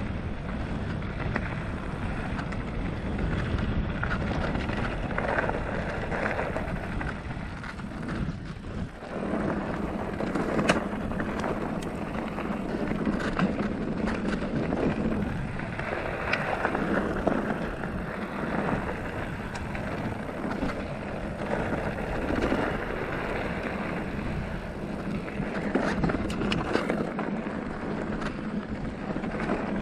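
Felt Decree 3 mountain bike riding over a loose dirt and gravel trail: steady tyre and wind noise on the camera's microphone, broken by scattered sharp clacks and rattles from the bike over rocks and bumps.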